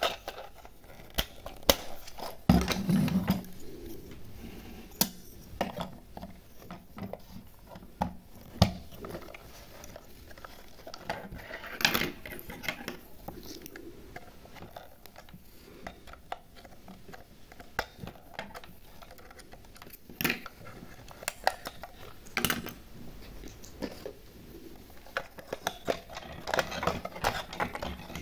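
Irregular clicks, taps and light knocks of small hard objects being handled, with a louder, fuller clatter about two and a half seconds in.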